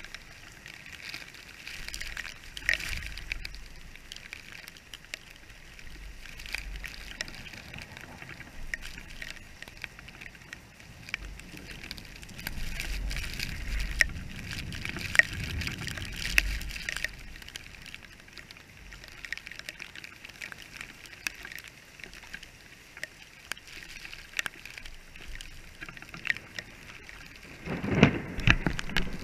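Heavy rain hissing down on wet pavement, with many sharp ticks of drops hitting close by. A low rumble swells for a few seconds in the middle, and the rain gets louder near the end.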